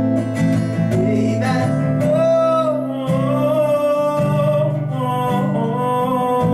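Live acoustic song: an acoustic guitar strummed in a steady rhythm, with a voice singing long held notes over it from about two seconds in.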